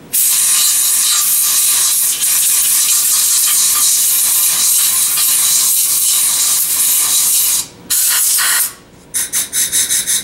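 Compressed-air blow gun blasting air through the passages of a Honda VT750DC carburetor bank to blow them out and check they are clear. One long hiss of about seven and a half seconds, a short burst, then a quick series of short blasts near the end.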